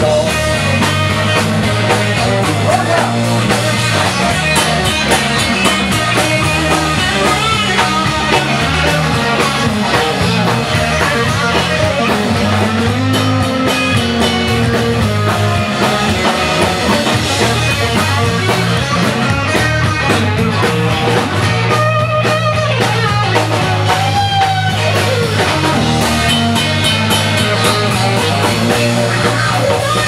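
Rock music with guitar and a drum kit, playing continuously over a steady bass line.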